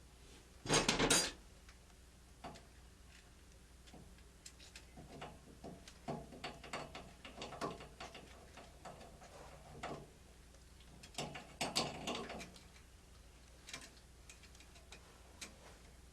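Small clicks, taps and rattles of hand work on a Taco zone valve power head's wiring as the wires and wire nuts are taken off, with a louder short rattle about a second in and another cluster of clatter around eleven to twelve seconds.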